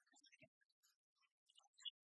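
Near silence, with only faint scattered ticks and crackle.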